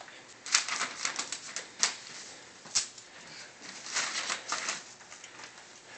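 Wrapping paper rustling and crinkling in short bursts as it is handled and folded around a box, with one sharper crackle near the middle.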